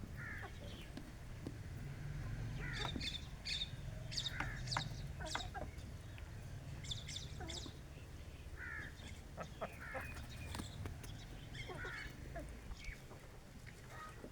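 Domestic hens clucking in short, scattered calls, mixed with brief high-pitched chirps, over a steady low rumble.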